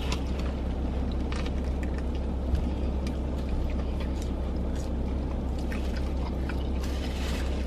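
Steady low hum inside a car cabin, with faint chewing and a few small clicks and rustles from eating a burger and fries.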